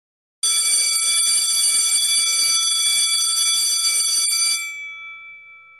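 Electric school bell ringing continuously, its clapper hammering the gong in a steady metallic ring. It starts about half a second in and cuts off abruptly after about four seconds, leaving the gong's tones to die away.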